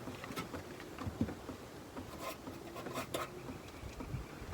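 Faint scraping and rubbing with a few light clicks and taps: small handling noises with no clear single source.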